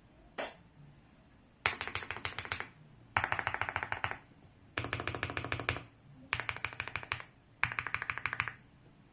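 Mechanical keyboard with Akko Cream Yellow linear switches being typed on fast in five short runs of rapid keystrokes, each about a second long, with brief pauses between, after a single keystroke about half a second in.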